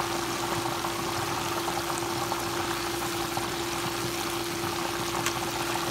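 Karaage chicken pieces deep-frying in hot oil: a steady, dense sizzle and crackle of bubbling oil, with a steady hum underneath.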